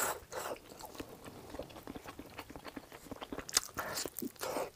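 Close-miked mouth sounds of a person biting into and chewing a large sticky glutinous-rice meat dumpling (zongzi), in irregular short bursts, louder at the very start and again near the end.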